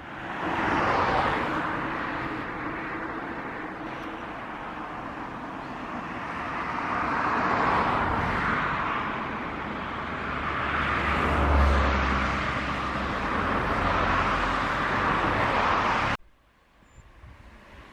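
Road vehicle noise, a steady rush of tyres and engine that swells and eases several times, with a deeper rumble a little before the end; it cuts off suddenly near the end.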